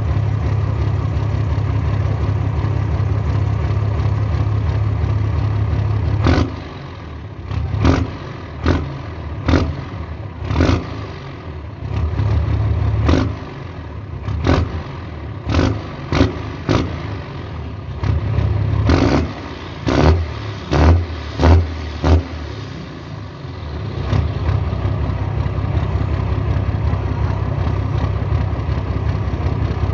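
Diesel truck engine idling through a chrome exhaust pipe with a Master Power muffler, a dry exhaust note. From about six seconds in it is revved in a quick run of about fifteen short throttle blips, a few held a little longer, then it settles back to a steady idle a little before the last six seconds.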